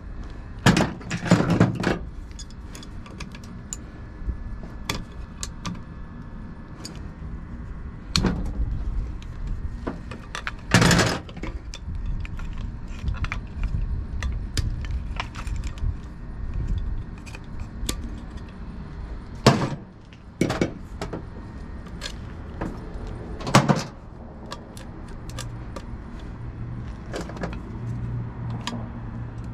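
Metal tools and compressor parts clinking and knocking as they are handled, irregular and scattered, with a few louder clatters spread through.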